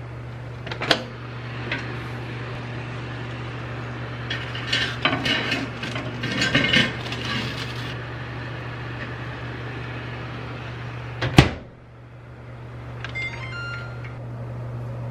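LG DIOS combination microwave oven humming steadily while the lined baking dish is set onto its rack with a stretch of clattering. The door shuts with a loud knock about eleven seconds in, the hum briefly drops and comes back, and a few short electronic beeps follow from the control panel.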